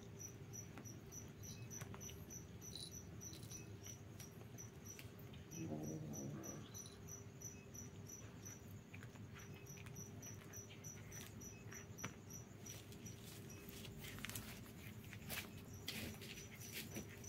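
Crickets chirping in a steady fast pulse, about four chirps a second, over a low steady hum. A cat gnawing a bone adds scattered faint clicks and crunches, more of them near the end, and a brief low sound comes about six seconds in.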